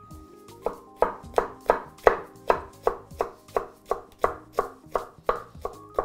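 Chef's knife chopping yellow bell pepper on a wooden cutting board: an even run of sharp strokes, about three a second, starting under a second in.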